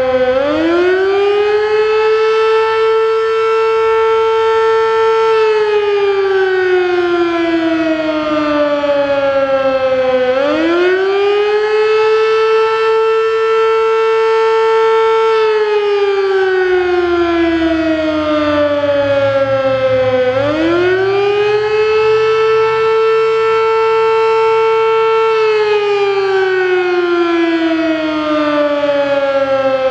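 Sterling Model M 8/16-port electromechanical fire siren sounding the attack signal for a weekly fire test. Its pitch rises quickly, holds for about four seconds, then glides slowly down, and the cycle repeats about every ten seconds.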